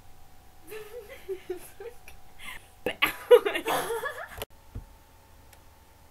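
Giggling that breaks into louder laughter about three seconds in, then cuts off abruptly, followed by a single low thump.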